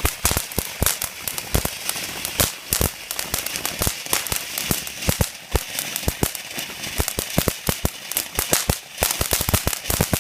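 Consumer firework going off in a rapid, irregular string of sharp cracks and pops, several a second.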